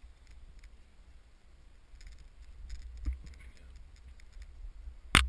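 Camera handling noise: a low rumble with faint scattered clicks, then a sudden loud burst of rapid knocks near the end.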